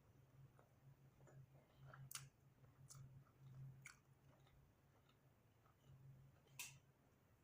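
Faint close-up chewing of a sloppy joe, with wet mouth clicks and smacks, the sharpest about two seconds in and near the end. A steady low hum sits underneath.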